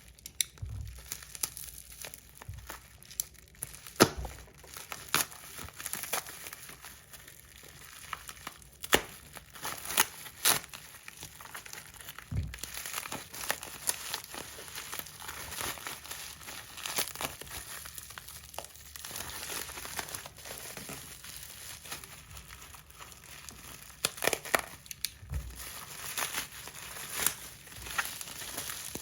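Packaging being unwrapped by hand: crinkling and rustling wrap with scattered sharp clicks and taps as the wrapped item is handled.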